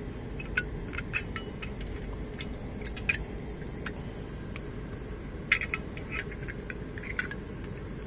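Sharp metallic clicks and clinks of a Zippo butane lighter insert being pushed into its chrome Zippo case, coming irregularly with the loudest cluster about five and a half seconds in, over a low steady hum.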